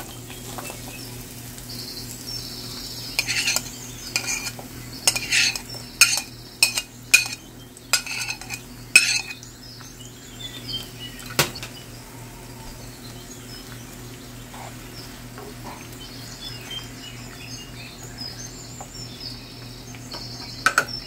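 Metal utensil clinking and scraping against a frying pan while red onion is stirred in hot oil, with a light sizzle. A run of sharp clinks falls between about three and nine seconds in, then a single knock a couple of seconds later, over a steady low hum.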